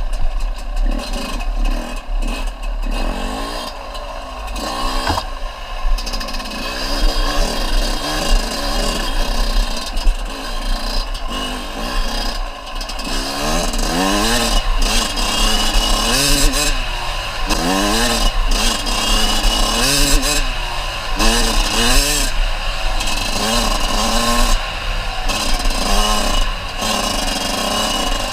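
Small dirt bike engine revving up and down repeatedly under throttle, its pitch rising and falling every second or two.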